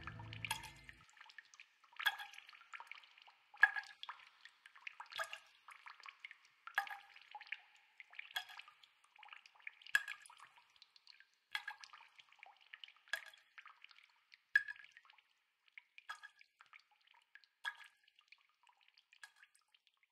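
Water dripping: single drops plinking, a louder drop about every one and a half seconds with fainter drips between, thinning out toward the end. A music track ends about a second in.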